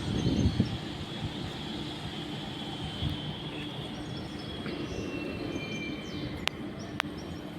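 Electric commuter train running on the line: a steady low rumble with a thin, steady high tone above it, and two sharp clicks near the end.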